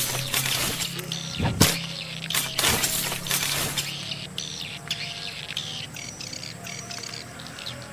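Swiftlet twittering: fast, repeated high chirps of a swiftlet lure call being tested at a swiftlet house. Loud, sharp crackling bursts over a low hum fill the first half.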